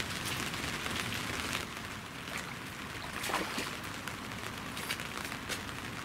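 Rain falling, a steady hiss with scattered sharp drops ticking close by.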